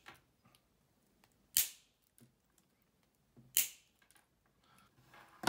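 Wire cutters snipping excess wire on a soldered circuit board: three sharp snips about two seconds apart.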